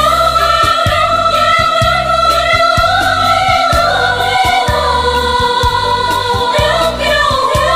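Background music: a song with long held sung notes over a steady beat.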